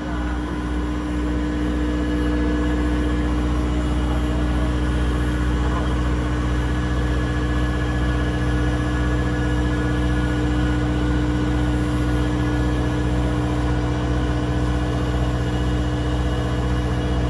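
Steady drone of the boat's Volvo Penta IPS diesel engines running, heard inside the engine room: a constant hum of several held tones over a mechanical rush.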